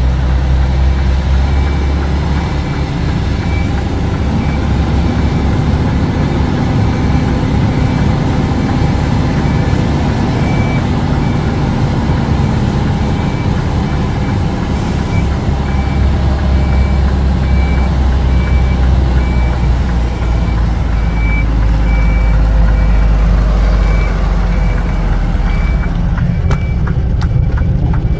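Truck's diesel engine running steadily, heard from inside the cab, with a faint reversing alarm beeping at an even pace of about once a second.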